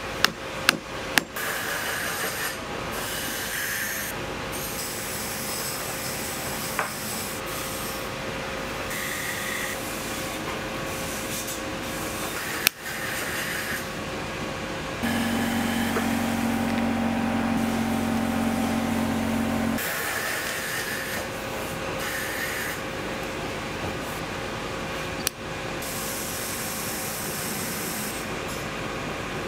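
Hand tools working the worn leather sole of a calked logger boot during teardown: steady scraping and cutting at the leather, with a few sharp clicks near the start and two more later on. A machine hums steadily for about five seconds midway.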